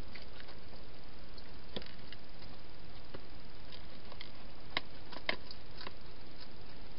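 Wild hedgehog eating at a food bowl: a string of sharp, irregular clicks and crunches, the two loudest about five seconds in, over a steady hiss.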